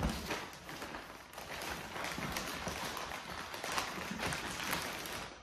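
A clear plastic bag of small hardware parts being handled and opened, rustling and crinkling continuously with many small crackles.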